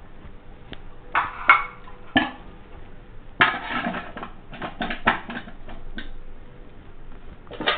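Aluminium idli stand rattling and clinking in a steamer pot as semolina dough balls are set into its cups. The knocks are light and scattered, with a small cluster near the middle.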